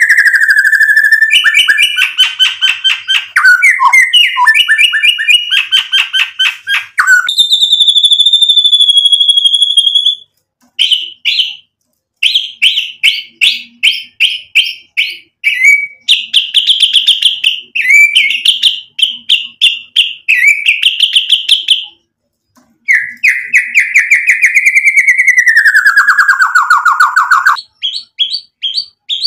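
Male white-rumped shama (murai batu) singing a loud, varied song of rapid trills and quick repeated notes. A clear whistle is held steady about a quarter of the way through, and a long slurred whistle falls in pitch near the end, with brief pauses between phrases.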